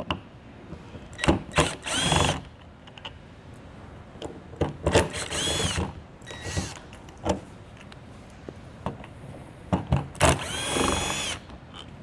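Cordless drill/driver backing screws out of an RV entry door lock in several short runs, the longest three each about a second, with a whine that rises and falls as the motor spins up and down. Short clicks between the runs.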